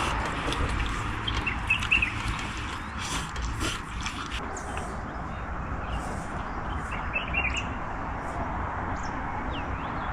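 Two dogs eating from their food bowls, with scattered short clicks and a few brief high chirps over a steady background hiss.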